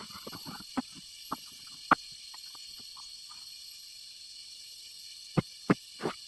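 Steady high-pitched insect chirring, with a series of short, sharp knocks: a cluster in the first two seconds, then three more near the end.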